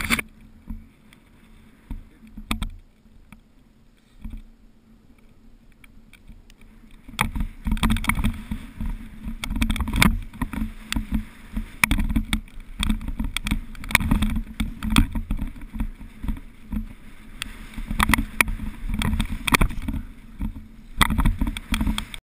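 Mountain bike ridden down a wet, slippery peat trail, heard from a helmet camera: tyres rumbling over the rough mud with frequent knocks and rattles from the bike. The first seven seconds are quieter, with a few thumps, before the riding starts in earnest.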